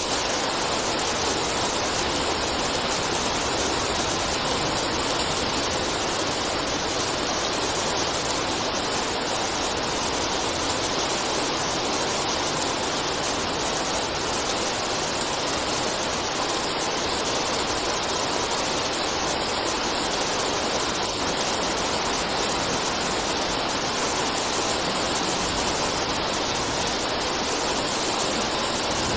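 Steady rain: an even, unbroken hiss with no distinct drops and no change in level.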